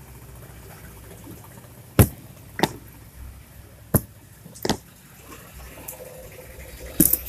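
About six sharp taps, irregularly spaced, as a pipe is knocked down onto a new rubber oil seal to seat it in the plastic bearing housing of a washing-machine gearbox cover.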